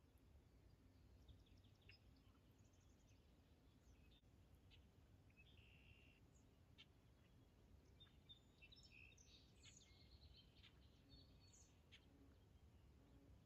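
Near silence: faint scattered bird chirps and short calls over a low, steady background rumble, busiest through the middle and later part.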